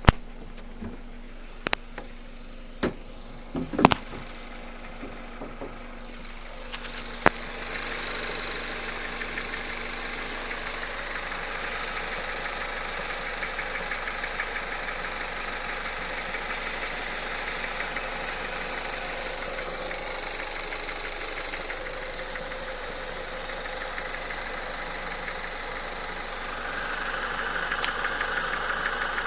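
A few sharp clicks, then a Skoda Octavia A7's engine comes on about seven seconds in and idles steadily, a little louder near the end. The engine has a knock under the bonnet that the owner is recording.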